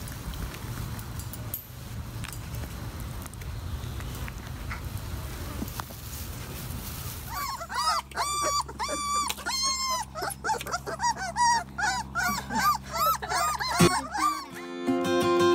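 Puppies whining and yelping in quick, high-pitched cries, each rising and falling, about three a second, starting about halfway through over a steady low hum. Acoustic guitar music comes in near the end.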